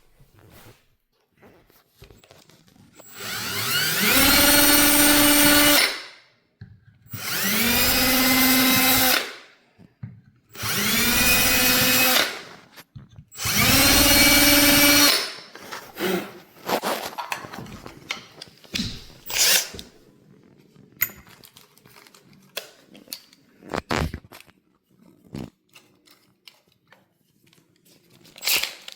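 Electric drill run in four separate bursts of two to three seconds each, its motor whine rising as it spins up each time and then holding steady. Small clicks and knocks follow.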